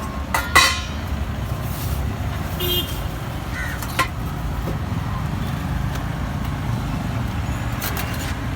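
Busy roadside ambience: a steady rumble of passing traffic, broken by a few sharp metallic clanks, the loudest about half a second in.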